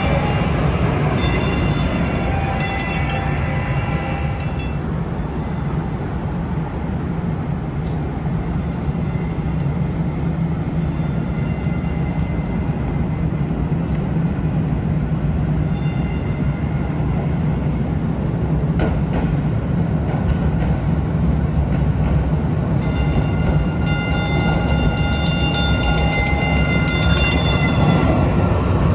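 Kinki Sharyo light-rail trains on street track over a steady low rumble: a train running past at the start, and a second train arriving about twenty-three seconds in. Both passes carry several high steady ringing tones over the rumble.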